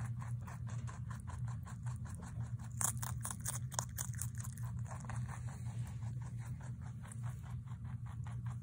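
Holland lop rabbit chewing lettuce: a quick, steady run of small crunches, about five a second, a little louder around the middle.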